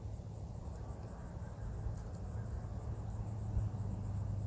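Insects chirping in a steady, evenly pulsing high-pitched rhythm, over a low steady rumble that grows louder about halfway through.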